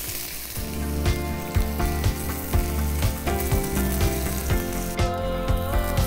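Frozen paratha sizzling as it fries in hot oil in a pan. Background music with a steady beat comes in about half a second in, under the sizzle.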